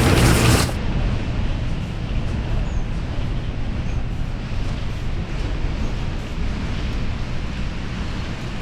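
Strong wind blowing steadily against a 5th-wheel trailer, with a low rumble, heard from inside. A louder sound cuts off sharply in the first second.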